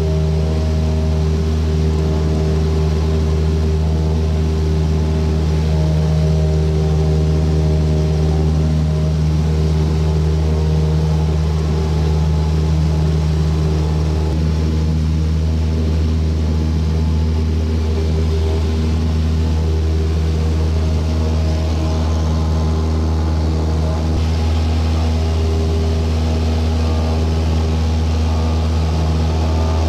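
Cessna light aircraft's piston engine and propeller droning steadily in flight, heard from inside the cabin: a loud, even, low hum.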